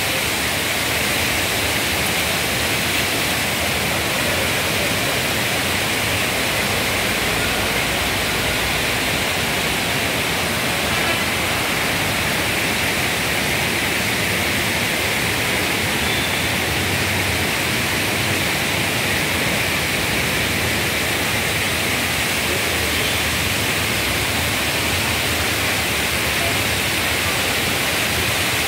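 Steady rush of fast-flowing water in a concrete channel, pouring out under a bridge and spilling over a small weir.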